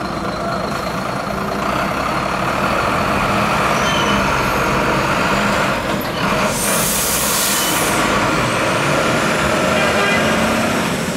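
Articulated lorry's diesel engine running as it slowly pulls away with a loaded low-loader trailer, with a sharp hiss of air from its air brakes about six and a half seconds in, lasting about a second and a half. Wind buffets the microphone.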